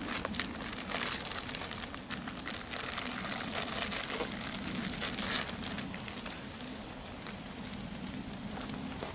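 Steady fine crackling and sizzling at a campfire cooking setup, with one louder crackle about five seconds in.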